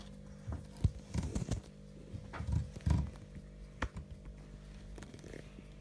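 Light knocks and sharp clicks of small toy train parts being handled while the wheels are swapped, over a steady faint hum.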